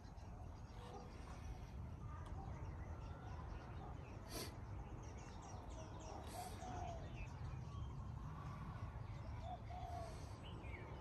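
Outdoor ambience of a steady low rumble with faint, scattered bird chirps. Two sharp clicks come about four and six seconds in.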